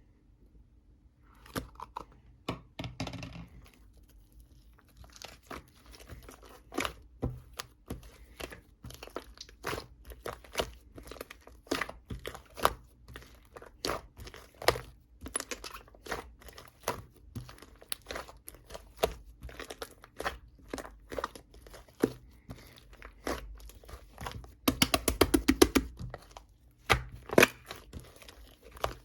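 Irregular crinkling and crunching clicks, with a quick run of rapid clicks near the end.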